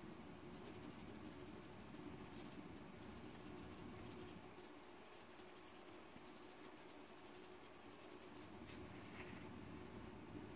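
Faint scratching of a stainless-steel kitchen scourer rubbed against a small plastic gear's rusty steel shaft, scrubbing the rust off. It comes in short strokes, thinning out in the middle.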